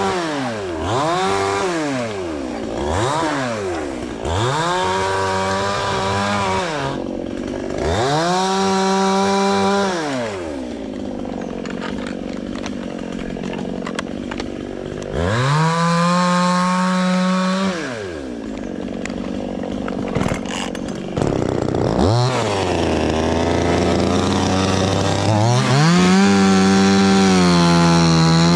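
Chainsaw engine revved up to full throttle and let back down to idle over and over, about eight times, each burst lasting from one to three seconds, as the saw cuts into tree wood.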